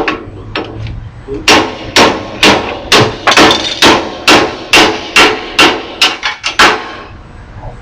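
Hammer striking the steel core of a microwave oven transformer along its welded seam, a few light taps and then about a dozen hard metallic blows at roughly two a second, breaking the weld so the copper or aluminum windings can be knocked out.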